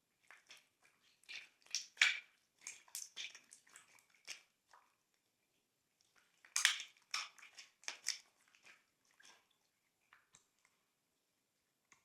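Glossy slime being squished and mixed by hand, giving rapid wet crackles and small popping clicks in two busy spells, with only a few scattered pops near the end.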